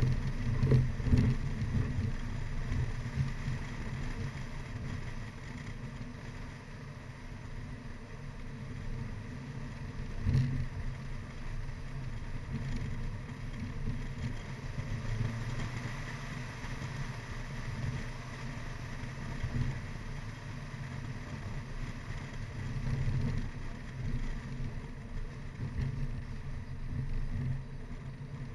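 Mini Cooper R55 Clubman driving hard up a winding road: steady engine and road noise, with a few short thumps about a second in and again about ten seconds in.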